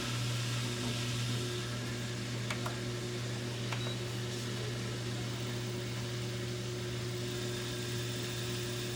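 GE front-load washer running a diagnostic test cycle: a steady electric hum with a rushing noise over it, and two faint clicks a few seconds in.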